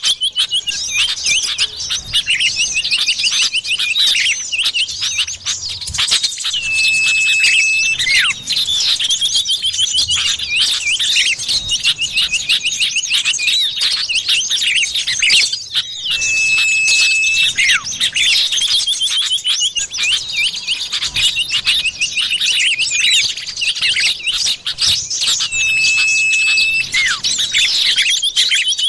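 Bird-lure recording of common iora (cipoh) calls: fast, continuous chattering chirps, broken three times by a long steady whistle about ten seconds apart.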